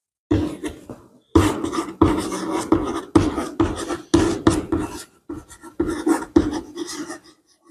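Chalk writing on a blackboard: a quick run of sharp taps and scratching strokes, several a second, with a short pause about a second in.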